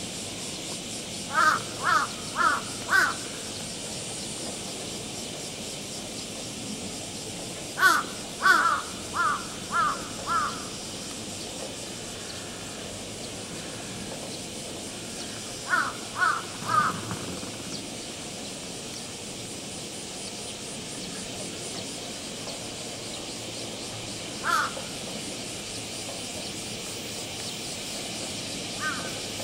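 A crow cawing in short runs: four caws, then five, then three, then a single caw near the end, over a steady hiss.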